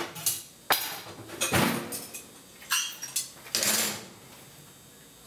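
Metal cookware clattering on a gas stovetop: a series of separate knocks and scrapes of pans and utensils, dying down in the last second or so.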